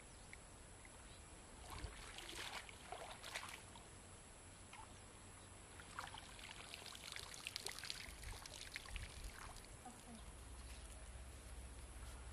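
Water sloshing and dripping as a long-handled dip net is swept through shallow pond water and lifted out, in two spells: about two seconds in and again from about six to nine seconds in.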